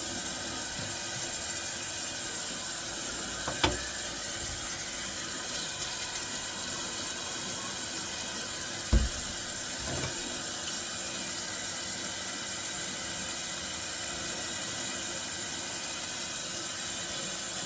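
A steady hiss with a few clicks and knocks over it: a sharp click about a third of the way in, a louder knock about halfway, and a softer one just after.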